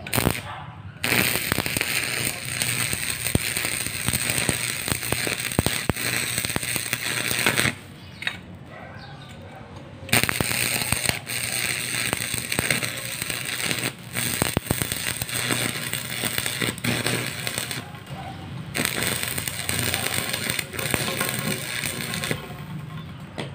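Stick (arc) welding on a steel pipe: the electrode's arc crackles steadily in three runs, pausing for about two seconds a third of the way in and briefly about three-quarters through, and stopping shortly before the end.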